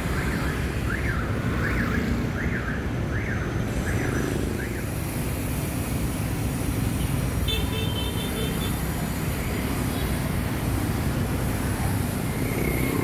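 Steady city street traffic of motorbikes and cars passing close by. During the first few seconds a high chirping tone repeats about every half second, and about two-thirds of the way through a short high beep sounds.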